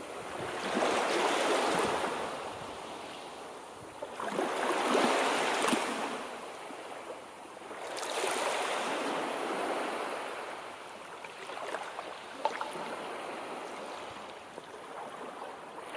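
Small waves on the Volga washing onto the shore, swelling and fading about every three to four seconds. A few sharp little splashes sound among them.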